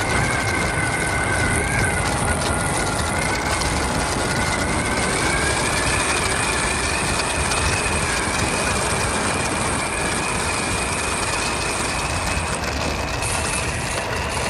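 Ola S1 Pro electric scooter's motor whine climbing slowly and steadily in pitch as the scooter gathers speed, over a constant rush of wind and road noise on the microphone.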